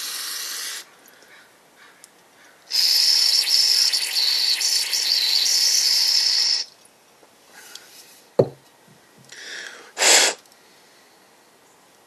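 Aerosol carburetor cleaner hissing out through its straw into a carburetor body: a short burst, then a long spray of about four seconds, a single sharp knock, and two more short bursts.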